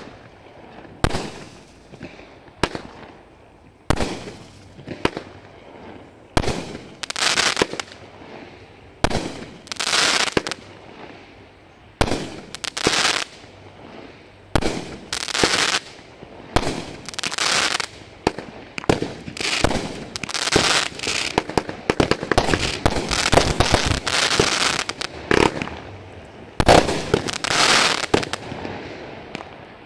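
Bright Star 'Traffic Jam' (BS8041) firework going off: a sharp report every second or two, each followed by about a second of crackling. The shots come faster and overlap over the last ten seconds in a finale, then stop.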